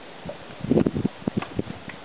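Irregular series of dull knocks and thumps from paddling an inflatable dinghy, the paddle bumping against the boat and the hands working it, loudest just under a second in.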